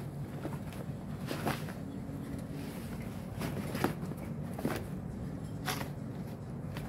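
Cardboard boxes rustling and crackling a few times as a person kneels and sits down on them, over a steady low hum.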